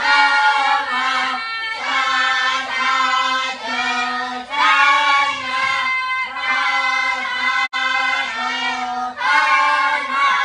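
Young voices chanting together in unison in a sing-song rhythm, as a class reciting its Khmer lesson aloud. The syllables are held in phrases of a second or so with short breaks between, and the chant stops suddenly at the end.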